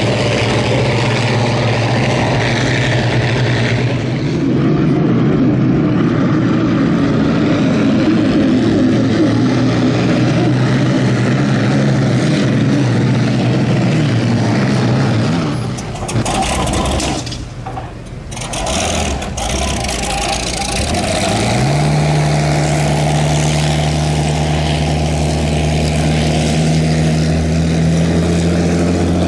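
Vintage unlimited hydroplanes' Allison V-12 aircraft engines running at racing speed, a steady deep drone. It drops away briefly a little past halfway, then an engine's pitch climbs and holds as the boat accelerates.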